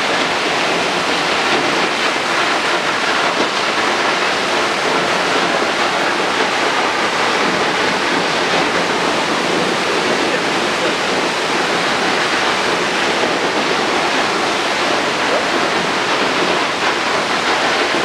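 Large waterfall: a loud, steady rush of falling water and spray that does not change.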